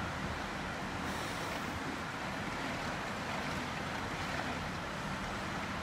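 Torrential rain driven by strong wind, a steady rushing noise of the downpour.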